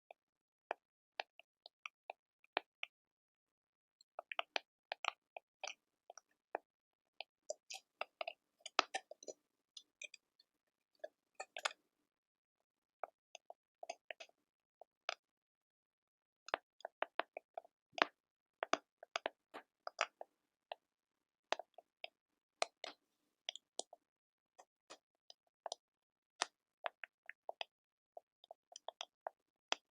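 Quiet ASMR crackling: many small, irregular clicks and pops in quick clusters, with silent gaps between. There is a pause of a few seconds a little before halfway.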